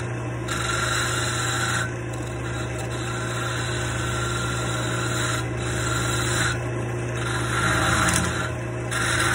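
Wood lathe running with a steady hum while a turning gouge cuts a spinning wooden dowel, a scraping hiss of peeling shavings. The cutting sound breaks off briefly several times as the tool is eased off the wood and comes back.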